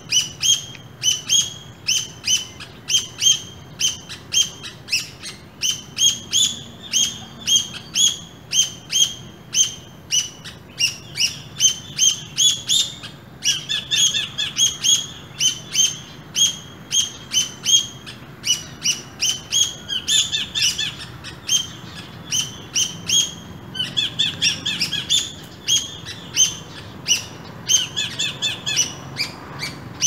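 Squirrels chirping: a steady series of short, sharp chirps, about two or three a second. Now and then a second caller overlaps and the chirps come in denser bursts.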